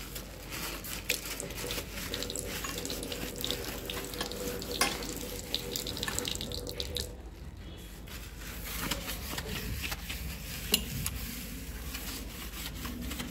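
Wet hand-scrubbing of a ceramic washbasin coated with a homemade cleaning liquid: a continuous run of short, irregular rubbing and scraping strokes.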